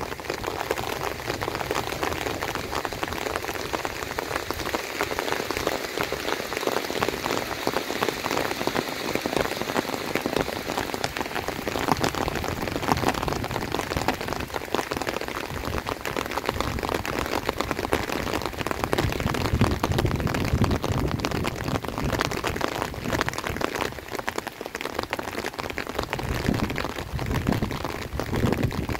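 Heavy rain falling steadily, a dense patter of drops on the surfaces around.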